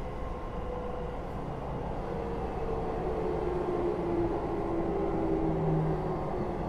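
Keio 8000 series electric train heard from inside the car above its Hitachi GTO-VVVF main controller: steady rumble of wheels and motors, with the inverter's whine in several tones that slide downward in pitch over a few seconds.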